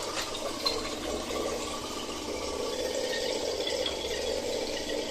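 RO water purifier booster pump running with a steady, loud noise from its pump head, which the technician takes for a faulty pump head that is not working properly.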